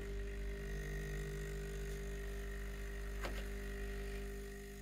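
DeLonghi EC220 espresso machine's vibratory pump buzzing steadily as it tries to prime, drawing water into a system left empty after long disuse. One short click about three seconds in.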